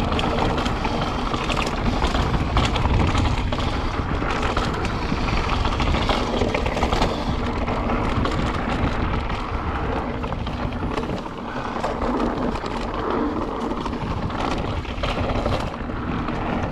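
Mountain bike descending a dirt trail at speed: tyres on dirt and the bike clattering over bumps, with wind rushing over the microphone.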